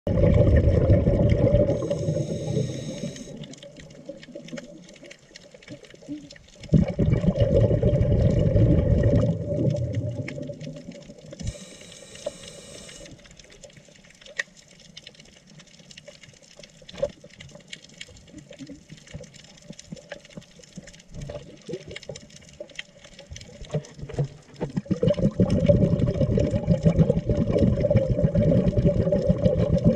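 Scuba diver breathing through a regulator underwater: short hissing inhales followed by long, loud rumbles of exhaled bubbles, three exhalations in all with a long pause between the second and third. Scattered sharp clicks and crackles of the reef run through the quieter stretches.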